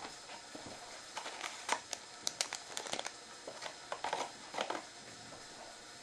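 A run of irregular small crackles and crinkling clicks from handling something in a kitchen, densest from about one to five seconds in.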